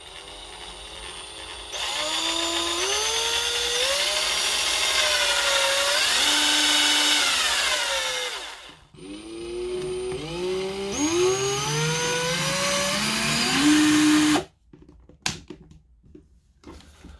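18 V cordless drill running again after its burnt-out MOSFET was replaced. Its motor whine rises and falls in steps as the variable-speed trigger is squeezed and eased, winds down to a stop, then starts again and climbs before cutting off suddenly. A couple of short clicks follow near the end.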